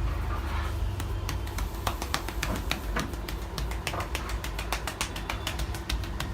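Hands tapping a head in an Indian head massage: a quick, uneven run of sharp taps, about five a second, starting about a second in. Under them is a steady low rumble.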